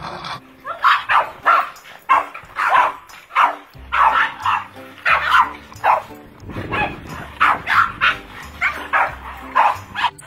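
A dog barking over and over, short sharp barks about two a second, with background music.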